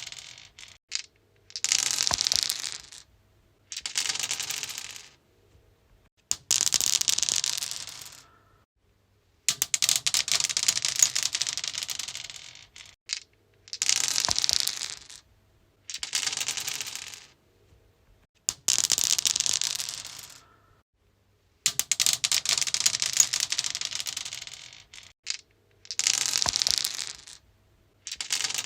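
Dice rolling and clattering across a stone surface, about ten separate rolls in turn, each a burst of rapid clicks lasting one to three seconds that dies away, with short silences between.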